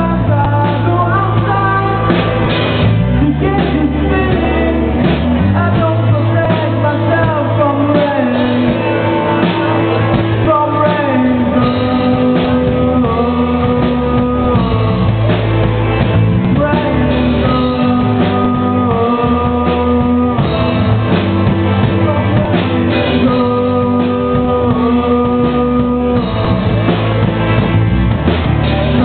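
Live rock band playing: electric guitars over a drum kit and a steady bass line, with the top end cut off by the recording.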